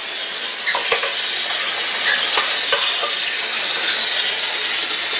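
Kitchen tap running water into a metal pot, a steady hiss, as leftover soap is rinsed out of the pot, with a few light knocks of the pot.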